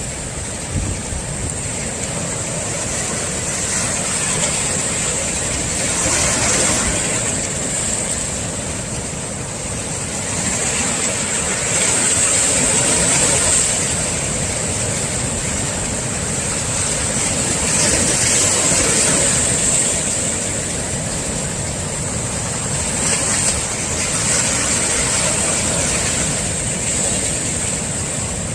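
Heavy swell surf breaking on the shore, a steady wash of water that surges louder about every six seconds as each wave comes in.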